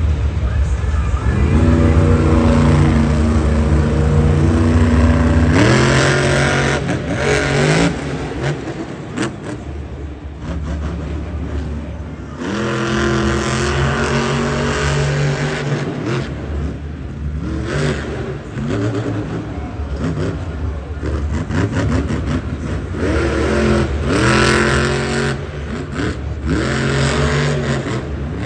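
Monster truck's supercharged V8 engine revving hard again and again during a freestyle run, the pitch climbing in several sweeps between steadier running.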